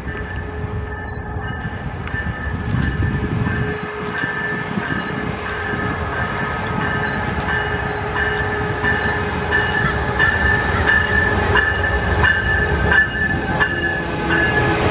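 Coaster commuter train pulling into the station, its locomotive drawing near and passing close along the platform with a rumble that grows steadily louder. A bell rings over it, struck about once a second.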